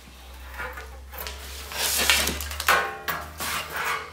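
A large stiff paper template and a cardboard template rustling and scraping as they are carried and laid down on a workbench, with the loudest handling noise about two seconds in and more near the end. A low steady hum runs underneath for the first three seconds.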